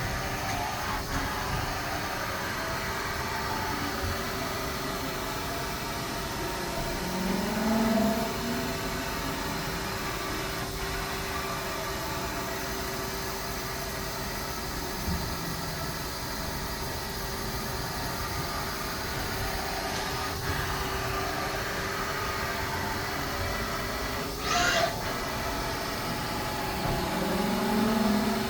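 Haas ST40L CNC lathe running with a steady machine hum and whine. It swells louder twice, and a short hiss comes about three-quarters of the way through.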